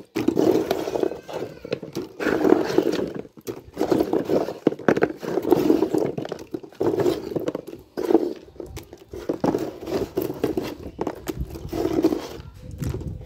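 Hard, sun-dried pork skin pieces for chicharon being dropped by hand into a wire spider strainer. They clatter, crunch and scrape against the mesh and each other in an uneven run of handfuls, about one a second.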